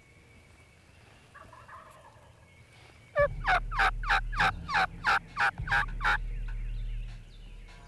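Turkey calling: a run of about eleven loud notes over about three seconds, each dropping in pitch. A steady low hum starts with them and fades near the end.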